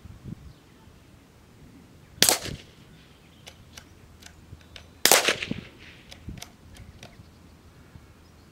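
Two .22LR rifle shots from a CZ Brno, about three seconds apart, the second followed by a short ringing tail.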